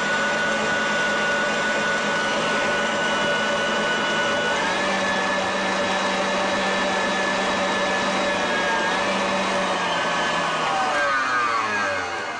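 Electric stand mixer running, whipping cream in a steel bowl: a steady motor whine that steps up in pitch about four and a half seconds in, then winds down and stops near the end.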